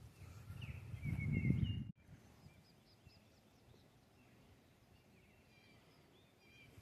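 Small wild birds chirping and calling in short, repeated high notes. For the first two seconds a louder, uneven low rumble on the microphone sits under them, then it cuts off suddenly, leaving the birdsong over a faint background.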